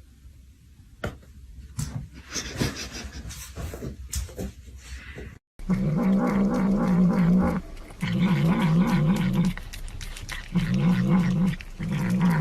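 A pet animal gives four long, low, wavering growling calls in a row, each one to two seconds long. Before them come scattered knocks and rustling, then a short break.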